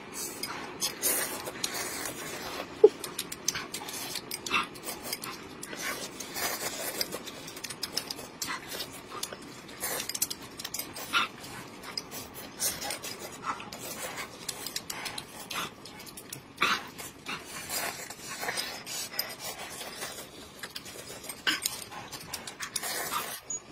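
Close-miked eating sounds from two people: slurping and blowing on hot soup and chewing, with many short wet mouth clicks and now and then a clink of chopsticks on glass bowls.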